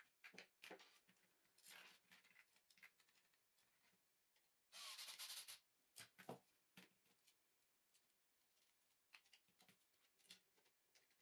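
Ryobi cordless drill-driver runs for about a second, roughly halfway through, driving a small screw into a 3D-printed plastic plate. Around it come light clicks and taps of small screws and plastic parts being handled.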